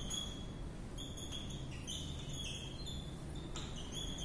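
Whiteboard marker squeaking as words are written on the board: a string of short high squeaks that shift in pitch, over a faint steady low hum.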